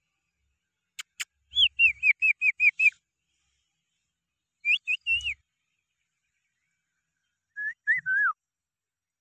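Rose-ringed parakeets calling: a quick run of about seven short, falling shrill calls, a group of three a couple of seconds later, and a lower group near the end. Two sharp clicks come just before the first run.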